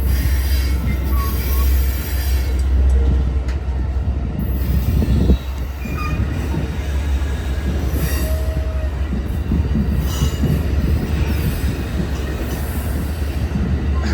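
Amtrak Coast Starlight passenger train rolling past on its departure: a steady, loud rumble of wheels on rail, with a few brief, faint wheel squeals.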